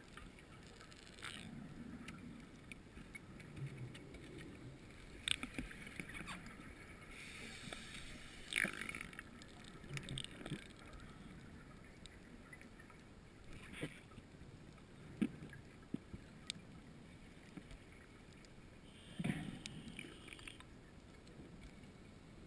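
Underwater hiss of a scuba dive, broken by irregular bursts of a diver's exhaled regulator bubbles, the strongest about eight and a half seconds in and again near the end, with scattered faint clicks.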